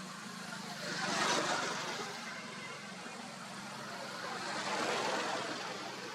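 Two vehicles passing by, each a swell of noise that builds and fades, one about a second in and another around five seconds in, over a steady low hum.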